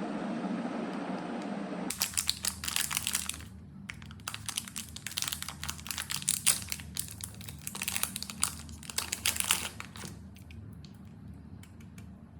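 Packaging crinkling and crackling as it is handled and opened, in a dense run for about eight seconds, then a few scattered clicks. Before that, a steady hiss cuts off suddenly about two seconds in.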